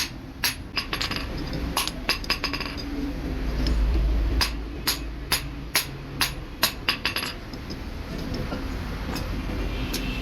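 Sharp metallic clinks of a hammer striking metal, irregular and in short runs, that mostly stop after about seven seconds. A low rumble swells around four seconds in.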